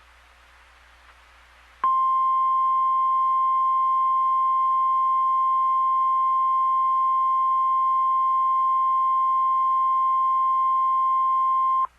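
NOAA Weather Radio 1050 Hz warning alarm tone, a single steady high tone that marks an emergency alert. It comes in about two seconds in after faint radio hiss, holds unchanged for about ten seconds, and cuts off just before the end.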